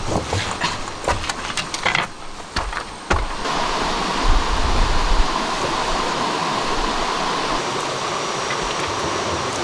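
Rocks knocking and clacking against each other as stones are handled and set in place. About three and a half seconds in, this gives way to the steady rush of a flowing stream, with a few dull thuds.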